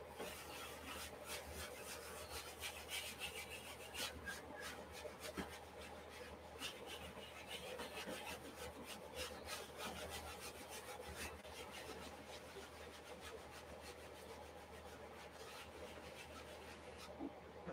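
Sponge rubbing and dabbing acrylic paint onto a stretched canvas: faint, quick scratchy strokes, many a second, thinning out after about twelve seconds.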